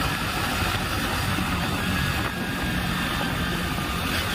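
Hero Splendor Xtec's single-cylinder engine running steadily while the motorcycle cruises, blended with a continuous rush of wind and road noise.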